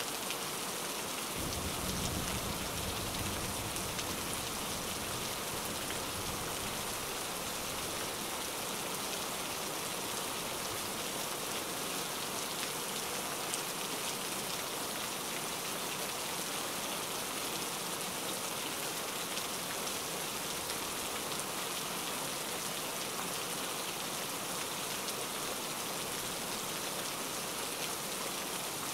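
Steady rain ambience, an even patter of rain that does not change. A brief low rumble comes in about a second in and lasts a couple of seconds.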